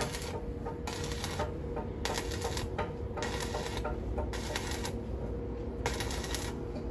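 Arc welding on a steel boat exhaust pipe: the welding arc crackling and sputtering irregularly, with a few brief lulls.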